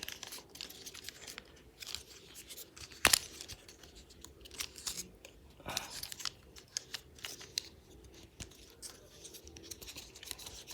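Plastic parts of a transforming toy robot clicking, scraping and rattling as it is handled and folded, with one sharp snap about three seconds in.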